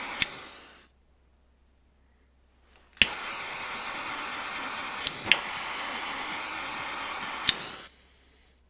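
A heating tool blowing with a steady rushing hiss as it heats a metal rooster tail spinner body for powder painting. A first burst fades out in the first second; after a pause it starts again with a sharp click about three seconds in, runs with a few more clicks, and cuts off a little before the end.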